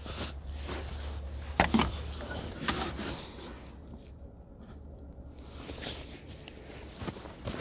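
Footsteps crunching in snow, irregular steps with the loudest crunches between about one and three seconds in and a quieter pause around four seconds in.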